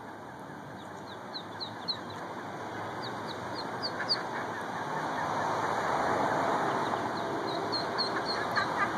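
Mallard ducklings peeping: short, high peeps in quick clusters, over a steady background noise that grows louder about halfway through.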